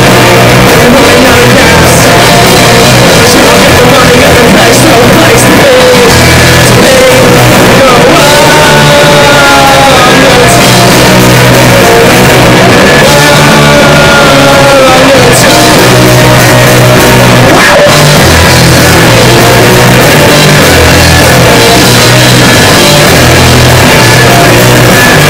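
A rock band playing live and loud: electric guitar, bass guitar and drum kit, with a voice singing.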